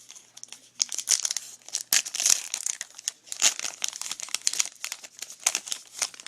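Trading card pack wrapper being torn open and crumpled by hand: a run of irregular, crackly crinkling.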